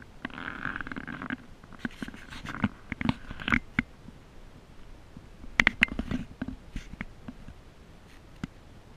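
Scratchy rubbing for about a second, then scattered clicks and knocks in two clusters: handling noise on the camera as it is carried.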